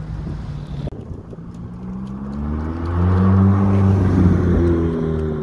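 Ferrari convertible's engine driving close past at a moderate pace. Its note rises as it approaches, holds loudest for a second or two, then drops slightly in pitch as it goes by.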